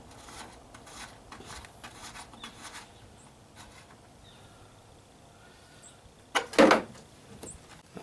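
Old boat ignition switch being unscrewed by hand and pulled out of its fiberglass console: light clicks and scrapes for the first few seconds, then a louder short clatter about six and a half seconds in as the switch comes out of its hole.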